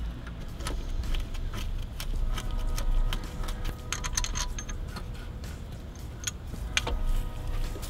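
Irregular metal clicks and clinks of a socket tool working the bolt on the N52 engine's serpentine belt tensioner loose counterclockwise.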